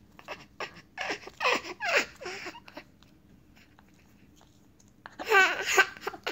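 Baby laughing: breathy giggles about a second in, then a louder, pulsing laugh near the end.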